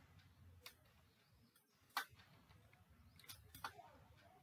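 A few faint, scattered clicks of computer keyboard keys against near silence, the loudest about two seconds in and a quick pair near the end.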